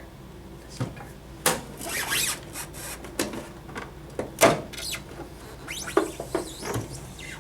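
Handling noise from a machine's back case being opened and moved: scattered clicks, knocks and rubbing, with the sharpest knock about halfway through.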